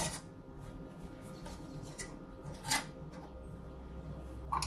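Metal lid and screw band being fitted and twisted onto a small glass canning jar of hot syrup: a sharp click at the start, then a few light scrapes and taps of metal on glass. Near the end a paper towel rubs around the jar.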